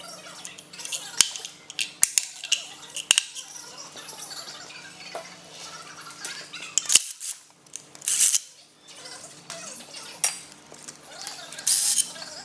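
Metal hand tools clicking and clinking against engine parts, with a few sharp isolated clicks and short bursts of rattling later on.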